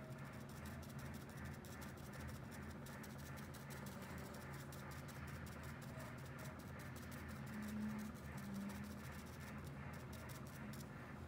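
Sponge dauber dabbing paint onto a painted tumbler: a quick run of faint, soft taps, several a second, over a steady low hum.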